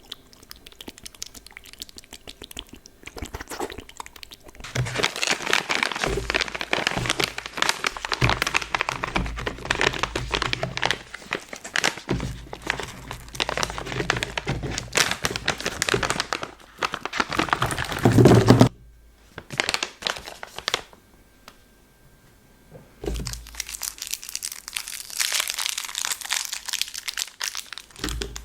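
Plastic lollipop wrapper crinkling and crackling close to the microphone as the candy is unwrapped. It starts with sparse crackles, turns dense about five seconds in, and stops suddenly about two-thirds of the way through. After a pause of a few seconds, a second stretch of crinkling runs to the end.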